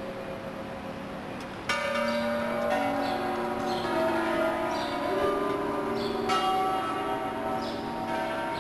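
Several hanging bells ringing together, their tones overlapping and sustaining, with fresh strikes about two seconds in and again about six seconds in.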